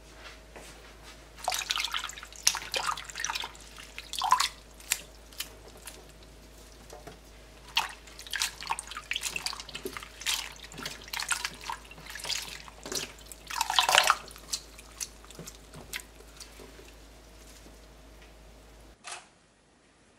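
Hands swishing and rinsing acacia flowers in a glass bowl of water: irregular splashes and drips in bursts, the loudest splash about fourteen seconds in.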